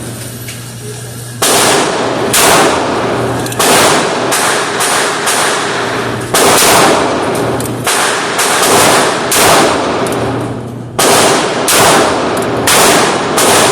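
Gunshots at a shooting range: a long, uneven series of sharp reports, some close together and some a second or more apart, each trailing off in echo.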